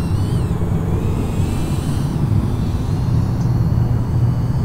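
Thin, high whine of a 75 mm Eachine Novice-I whoop drone's motors in flight, gliding up and down in pitch as the throttle changes, heard faintly over a louder steady low rumble.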